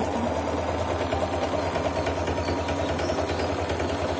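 Singer Promise electric sewing machine running steadily at speed, its needle stitching a zigzag stitch in fast, even strokes.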